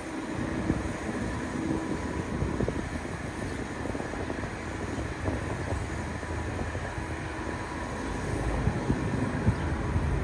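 Airbus A350-900's Rolls-Royce Trent XWB engines running at taxi idle, heard at a distance as a steady hum with a faint whine, mixed with wind rumbling on the microphone.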